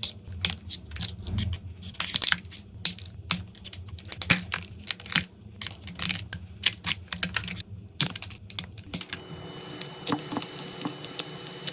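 Irregular rapid clicking and crackling of cracked phone back glass being picked and scraped off an iPhone 16 with a tool. About nine seconds in, a faint steady hum joins underneath.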